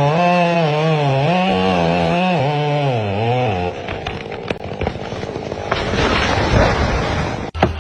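Chainsaw running, its pitch rising and dipping repeatedly as it is throttled and loaded in the cut, then stopping after about three and a half seconds. A noisy stretch of crackles and knocks follows.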